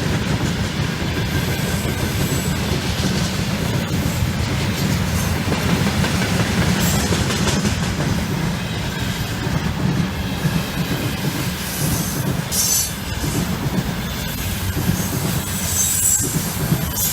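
Freight train rolling past at steady speed: a continuous rumble of wagon wheels with clatter over the rail joints. Brief high wheel squeals come about two-thirds of the way through and again near the end.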